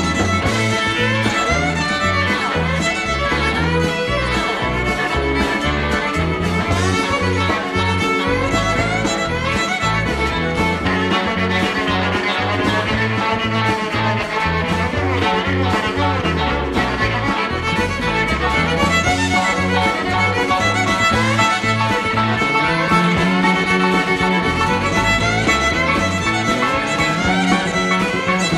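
Rock band playing live, with a violin taking the lead line over electric guitars, bass, piano and drums.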